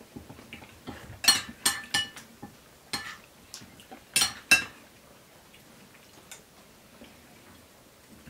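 Metal spoons clinking and scraping against soup plates during eating: a run of sharp, briefly ringing clinks between about one and five seconds in, then only faint small taps.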